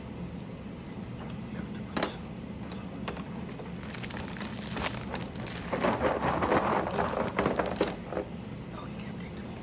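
Mechanical keyboard parts, plastic keycaps and switches, being handled and clicked: a single click about two seconds in, then several seconds of dense clicking and clattering that peaks past the middle and stops near the end.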